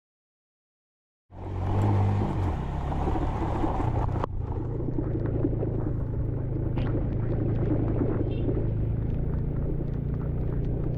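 Motorcycle engine running steadily while riding over a rough, rocky dirt track, with wind and tyre noise and small knocks from the stones. The sound cuts in suddenly after about a second of silence.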